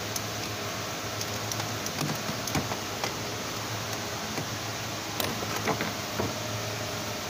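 Scattered light clicks and taps as a drive belt is worked by hand around the alternator and pulleys, over a steady background hum.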